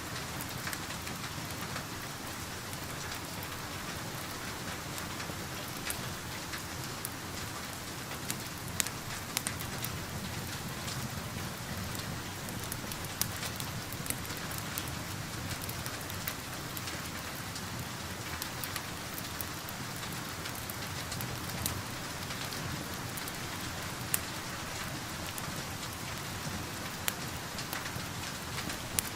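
Steady rain falling, with a dozen or so sharp pops and crackles from a wood fire scattered over it.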